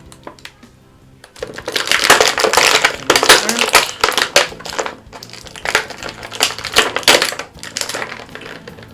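Plastic toy packaging crinkling and crackling loudly as an action figure is worked out of its box, starting about a second and a half in and going on in uneven spells with short pauses.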